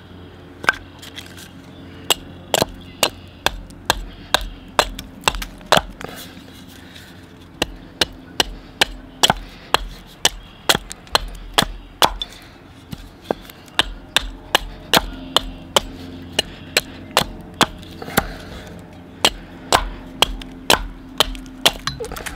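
Beavercraft AX-1 carving axe chopping a pine spoon blank against a stump: a long run of sharp whacks of the blade biting into the wood. The strokes are spaced out for the first few seconds, then come steadily at about two to three a second.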